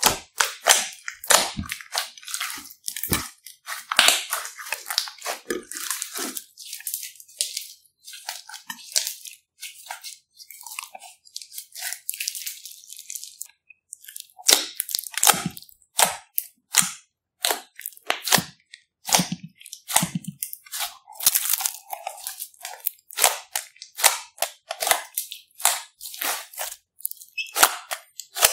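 Hands squeezing and pressing fingers into a large mass of glittery slime, making quick irregular wet pops and crackles, which thin out for a few seconds midway.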